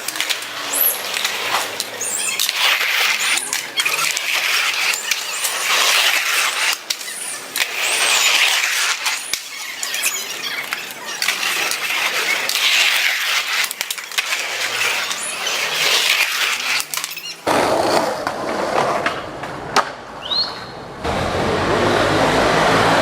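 Skateboards rolling, the wheels making a rushing noise that swells and fades as riders pass, with repeated sharp clacks and pops of boards and a few short high squeals.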